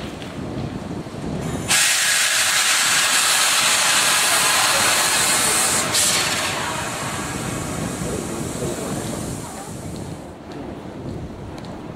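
Island Line Class 483 electric train (former London Underground 1938 tube stock) letting out a loud hiss of compressed air from its air system. The hiss starts suddenly about two seconds in, holds for about four seconds, then fades away over the next few.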